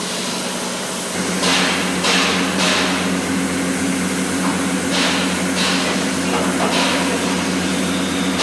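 Workshop machinery: a motor starts humming about a second in and runs steadily, with several short bursts of hiss over it.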